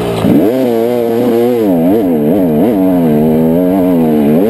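Dirt bike engine revving hard, heard from on the bike. The pitch climbs about a second in and then rises and falls in quick blips of the throttle as the bike works up a steep dirt hill.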